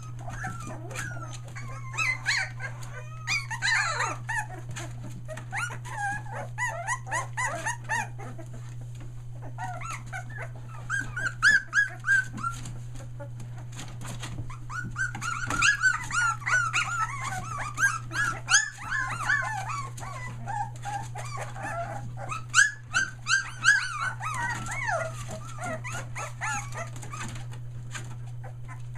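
A litter of three-week-old Australian Shepherd puppies crying, whimpering and yipping: many short, high cries overlapping one another, in louder spells, over a steady low hum.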